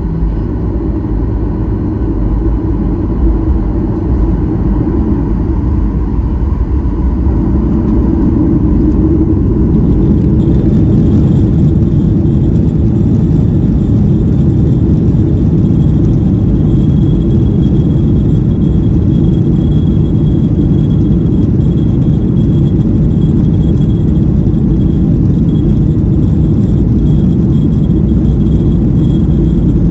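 Boeing 737-800's CFM56 jet engines running, heard inside the passenger cabin as a deep, steady rumble. The rumble grows louder over the first ten seconds or so, and a thin high whine joins about a third of the way in.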